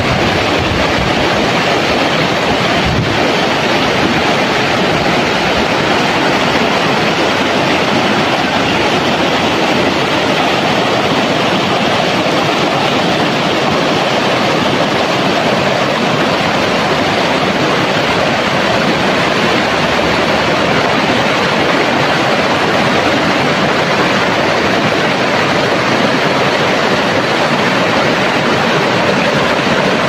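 Rushing water of a shallow, rocky river running over stones: a steady, loud rush.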